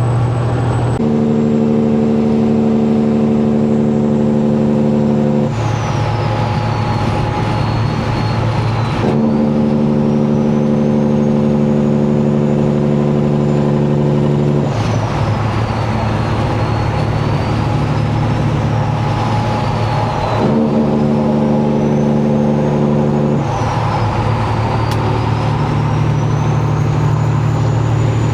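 Air train horn on a semi truck blown in three long blasts, each a steady chord of several tones that starts and stops abruptly: the first about a second in, the longest in the middle, a shorter one later. The truck's diesel engine runs underneath and between the blasts.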